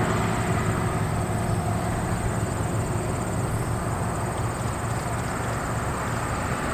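Steady low rumble of a distant steam locomotive, East Broad Top No. 15, a 1914 Baldwin 2-8-2 Mikado, working a freight train, growing a little louder near the end.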